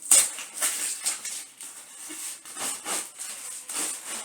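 Packaging being handled during an unboxing: a string of irregular short rustles and scrapes as the tripod stand is brought out.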